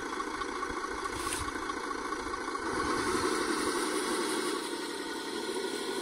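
Radio-controlled 1:14-scale Mercedes truck hauling a loaded low-loader trailer over gravel, with a steady engine-like running sound that gets somewhat louder about halfway through.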